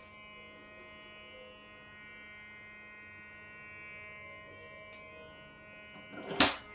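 Electronic keyboard sounding a steady buzzing tone that imitates a Simplex 9838 fire alarm horn on continuous. It is heard faintly from another room. Near the end come a couple of loud knocks.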